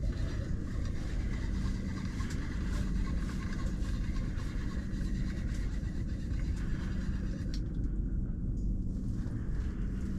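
Steady low rumble with a constant hum underneath.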